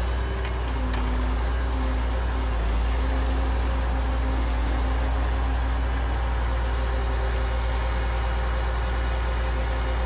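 Log truck's diesel engine running steadily at idle while powering its hydraulic knuckle-boom grapple loader, the hum shifting slightly in pitch as the loader works. Two faint clicks sound in the first second.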